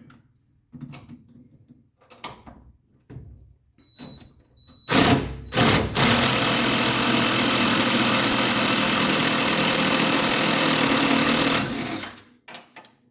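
Impact wrench hammering on a bolt: two short blips about five seconds in, then a steady run of about six seconds before it stops. Light clicks and tool handling come before it.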